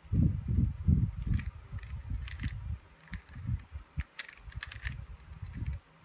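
A 3x3 Rubik's cube being turned by hand in quick moves: its plastic layers click and clack as they turn, over dull low knocks from the cube being handled.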